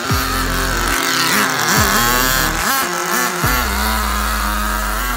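Small nitro engine of a 1/10-scale HSP 94155 short course RC truck revving high as the truck drives past, its pitch rising and falling with the throttle.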